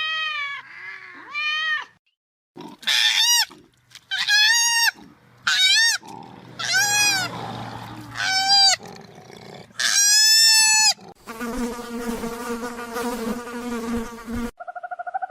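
A string of short, high, arching animal cries, a cat meowing at the start, followed about eleven seconds in by some three seconds of a low, steady buzz.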